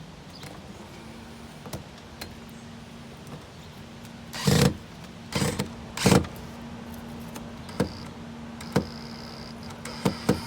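Power drill-driver backing out a window frame's mounting screws in a few short trigger bursts, with clicks between them. The bursts are kept short so the screws don't strip.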